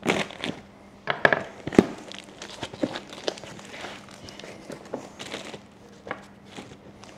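Hands rummaging through a box of motorcycle parts and packaging: crinkling and rustling of wrappers and cardboard, with irregular sharp clicks and knocks of items being handled, the loudest about a second or two in.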